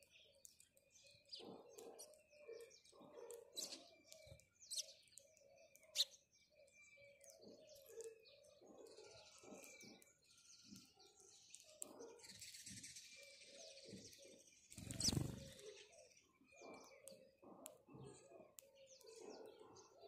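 Faint, scattered chirps of house sparrows, short and irregular. A few brief wing flutters, with one louder rustle about fifteen seconds in.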